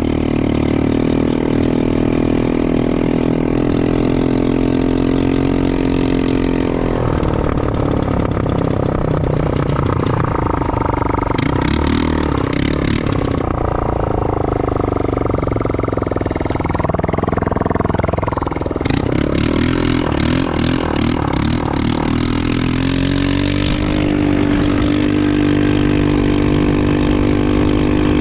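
ATV engine running under way, its pitch steady at first, then rising and falling with the throttle, with stretches of rattling.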